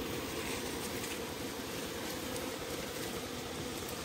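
Steady hum of wild honeybees buzzing around their nest in a rock crevice.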